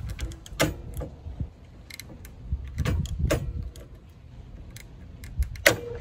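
Hand pop-rivet gun being squeezed to set rivets in an RV storage door latch: a series of sharp metal clicks and snaps, with the loudest snap and a brief ring near the end.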